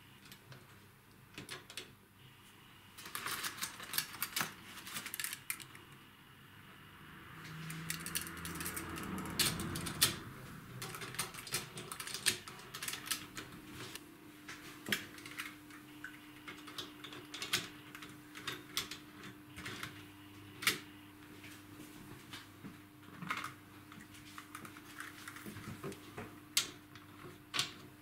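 Sharp clicks and clatter of a vintage Märklin H0 model locomotive, tender and coaches being set by hand onto metal track and coupled together, in irregular bursts.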